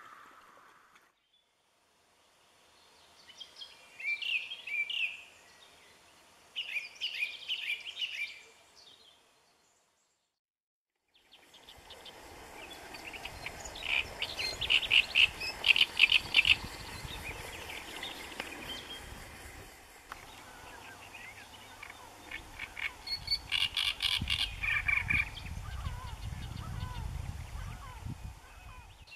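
Small songbirds singing in short phrases of quick chattering notes, with pauses between the phrases. The sound drops out about ten seconds in and resumes with low wind rumble on the microphone under the song.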